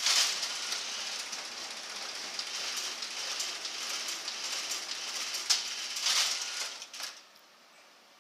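Large office copier-printer running as it prints and feeds sheets into its output tray: a steady, hissy mechanical whirr with a few sharp clicks. It stops about seven seconds in, leaving only a faint low hum.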